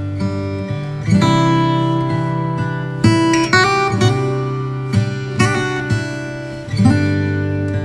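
Instrumental background music: plucked-string chords struck every second or so, each left to ring.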